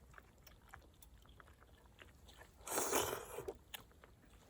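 A person chewing a mouthful of food, with small scattered clicks of the mouth and a short, louder rushing noise about two and a half seconds in.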